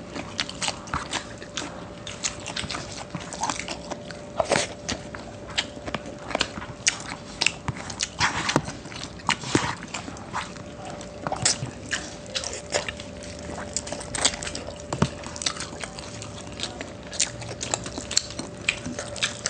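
Close-miked chewing and lip smacks of someone eating adobo and rice: an irregular run of short wet smacks and clicks.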